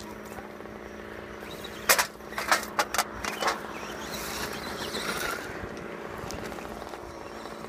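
Axial Wraith radio-controlled rock crawler driving over dry dirt and gravel, with a steady hum underneath. Several sharp knocks and clacks come about two to three and a half seconds in.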